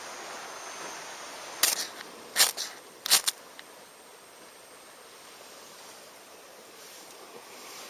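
A quick run of about five sharp clacks, about one and a half to three seconds in, over steady outdoor background noise.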